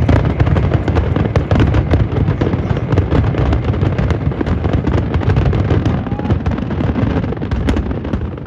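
Dense fireworks barrage: many shells bursting and crackling in quick succession over a continuous low rumble of booms, easing slightly near the end.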